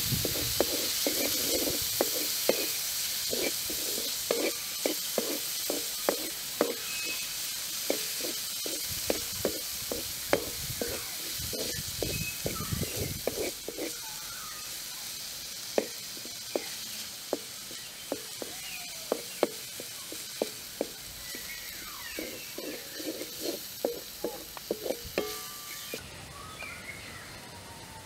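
Onions, tomatoes and chillies sizzling in a hot metal wok, with a wooden spoon knocking and scraping against the pan about twice a second as they are stirred. The sizzling stops suddenly near the end.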